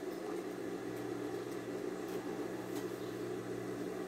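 Industrial sewing machine running with a steady low hum.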